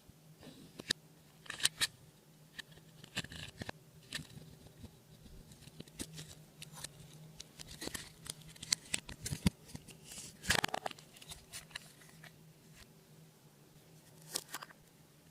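Hands working slime, squishing and stretching it, making irregular sticky clicks and crackles, with a louder cluster about ten and a half seconds in. A faint steady low hum runs underneath.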